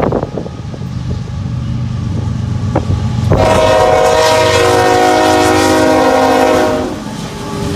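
Diesel freight locomotive's air horn sounding one long chord of several tones, starting about three seconds in and stopping near the end, over the steady low rumble of the locomotive's engine.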